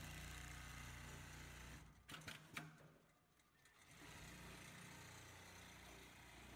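FOXSEW programmable pattern sewing machine running faintly with a steady, fast stitching hum. A few sharp clicks come about two seconds in, then the sound drops away for about a second before the running resumes.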